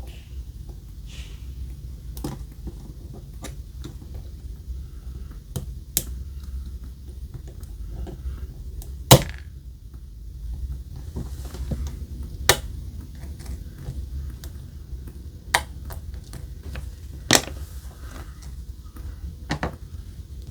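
Small sharp clicks and taps of repair tools on the tiny parts of an Apple Watch as it is worked apart, coming singly every couple of seconds, the loudest about nine seconds in, over a low steady hum.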